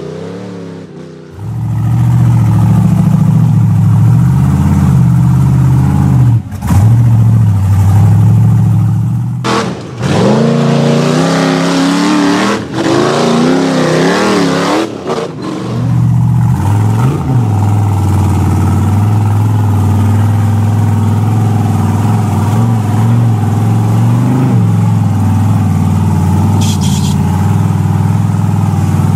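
A motor running steadily and revving, with its pitch wavering up and down for a few seconds in the middle; the sound cuts off abruptly and starts again several times.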